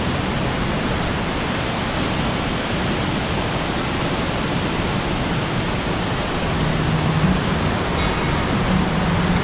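Cascading waterfall rushing with a steady, loud, even roar of falling water, heard close to its base.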